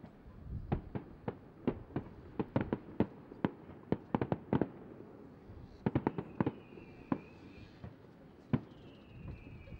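Aerial fireworks going off: an irregular string of sharp bangs from bursting shells. A high whistle that slides slightly downward sounds from about six seconds in for a second, and again near the end.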